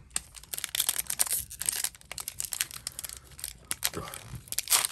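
Foil wrapper of a Pokémon trading-card booster pack crinkling and tearing as it is handled and ripped open, a run of quick crackles, loudest near the end.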